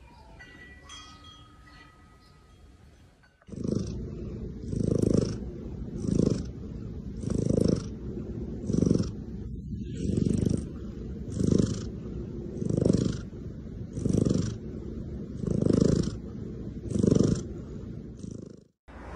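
Ginger cat purring loudly while its head is stroked, in regular swells about every 1.3 seconds. It starts a few seconds in and cuts off just before the end.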